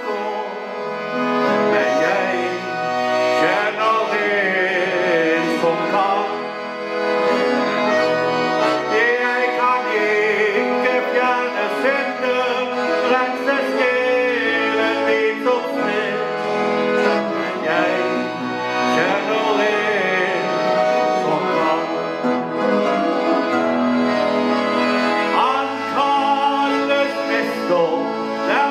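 Chromatic button accordion playing a Norwegian gospel song, with a man singing along.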